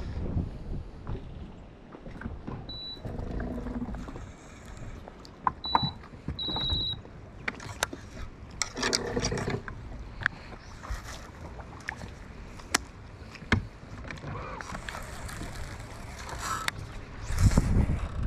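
Background sounds aboard a bass boat: scattered sharp clicks and knocks, three brief high-pitched beeps or chirps in the first half, and short bursts of rushing noise.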